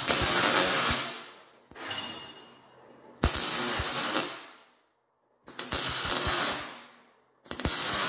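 MIG welding arc crackling in short bursts of about a second each, four of them with brief pauses between and a fainter short one near two seconds in. These are spot welds on steel, laid one after another to fill gaps, with a 75/25 gas mix and .035 wire.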